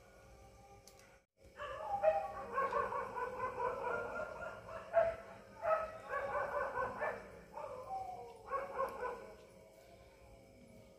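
A dog whining and yelping in several long high-pitched stretches with short breaks between them. It starts about a second and a half in and dies away near the end.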